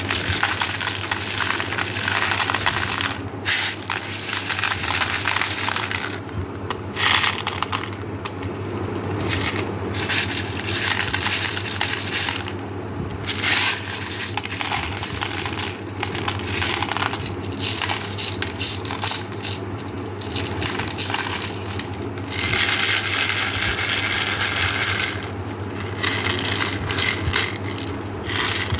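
Small hard candies clattering and crackling against each other and a hard container, in repeated uneven bursts, over a steady low hum.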